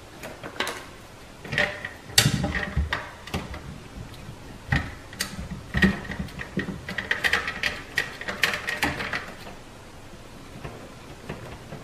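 Irregular clicks and scrapes of a coaxial cable and its metal F-connector being handled and screwed onto a cable modem's port, busiest toward the middle and quieting near the end.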